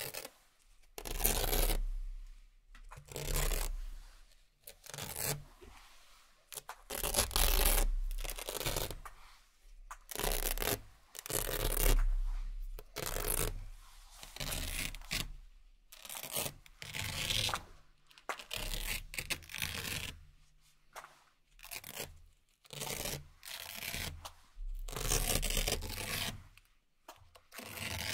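Hook-and-loop (Velcro) cable ties being ripped off a table, one after another: a long run of separate rips, each about a second long, with short pauses between.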